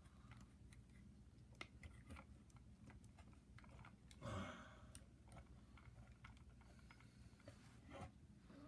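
Faint, scattered small clicks of plastic and die-cast parts of a 1/6 scale action figure being handled and its joints moved, with a brief soft vocal sound about four seconds in.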